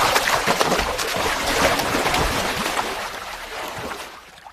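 Loud, irregular splashing of water that dies away over the last second or so.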